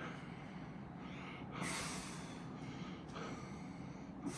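A person breathing hard through the nose and mouth, a few short forceful exhales, from the effort of a set of bent-over dumbbell rear-delt raises.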